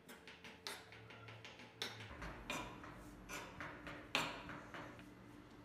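A kitchen knife chopping walnuts on a stone worktop: sharp, irregular taps of the blade striking the stone, roughly one or two a second.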